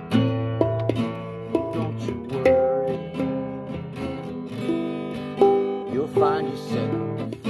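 Acoustic guitar music with picked chords in an instrumental passage, and a sliding, rising note about six seconds in.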